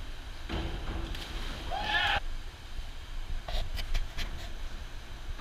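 A diver hitting the water about half a second in, a short splash with a brief shout from teammates over its end. Then a few sharp claps or clicks.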